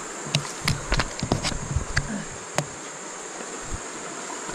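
Insects buzzing steadily at a high pitch, with a quick run of sharp clicks and knocks in the first two and a half seconds.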